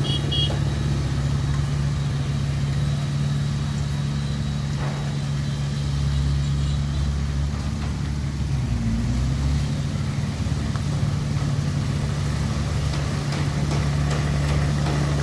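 Heavy diesel engine running steadily at low revs, its note dipping briefly about nine seconds in, with a few light clicks near the end.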